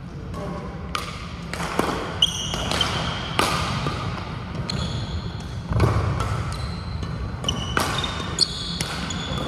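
Badminton rally: sharp racket-on-shuttlecock hits about once a second, with several short high squeaks of court shoes on the sports-hall floor. A low steady rumble runs underneath.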